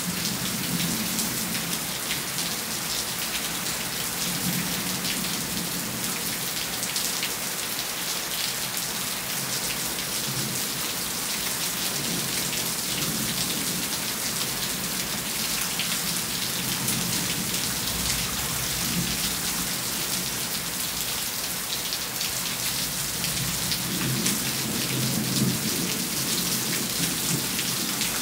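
Steady rain falling, with close individual drops splattering. A low rumble of thunder comes in a little past the middle.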